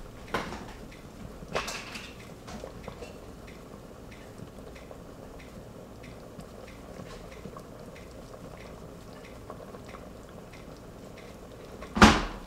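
Dishes clinking as rice is served onto a plate: a couple of knocks in the first two seconds and a loud clatter near the end. Between them, faint regular ticking from the sweet and sour sauce bubbling in the Instant Pot.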